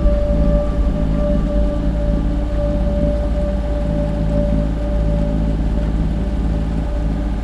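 Steady low drone of a sailboat's inboard engine running, with a sustained steady tone over it that fades out about three-quarters of the way through.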